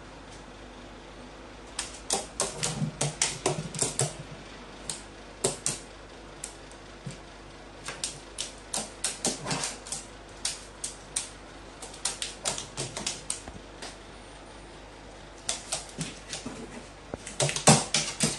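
Pet carrion crow's claws clicking and tapping on a stainless-steel sheet as it steps about, in three runs of rapid sharp clicks.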